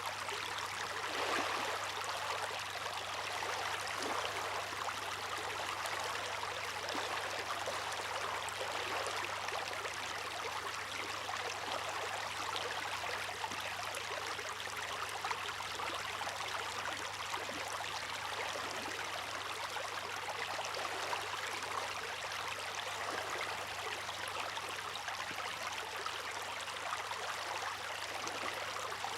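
Water splashing and trickling in a steady, continuous wash, with no distinct wave surges.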